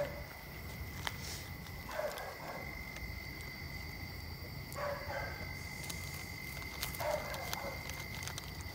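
Gulping from an upturned 2-liter plastic Sprite bottle being chugged, the bottle glugging in four short bursts about two to three seconds apart, over a steady high whine.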